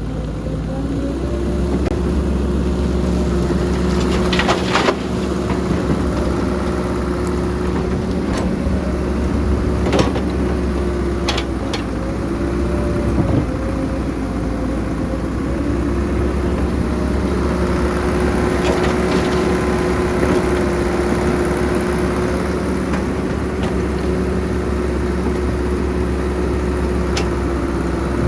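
Heavy diesel construction machinery running steadily under load, its engine note dipping briefly now and then, with a few sharp clanks and knocks.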